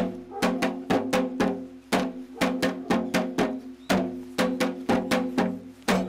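Janggu, the Korean hourglass drum, played in a fast, lively rhythm: sharp strikes, each followed by a short ringing tone, in a pattern that repeats about every two seconds.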